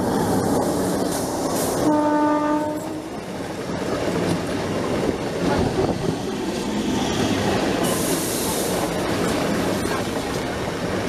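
Indian Railways EMU local train passing close by, its coaches rumbling and clattering over the rails. A short, steady train horn blast sounds about two seconds in.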